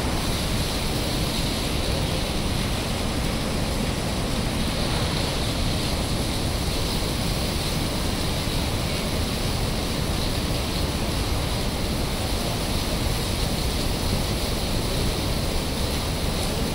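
Water rushing steadily through an open dam spillway, a constant, even noise with no change in level.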